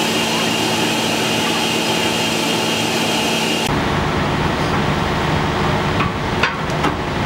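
Steady running noise of shipboard machinery with a constant hum. The sound changes abruptly about four seconds in, and a few light knocks come near the end.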